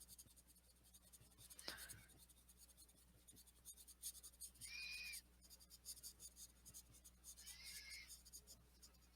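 Faint scratching of a June Gold oil-based mechanical coloured pencil stroking on paper, in a few short passes, with a light tap about one and a half seconds in.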